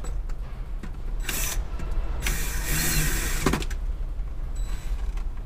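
Cordless screw gun (drill/driver) running in short bursts as it runs screws in without tightening them: a brief burst just over a second in, then a longer run of about a second and a half that ends with a click.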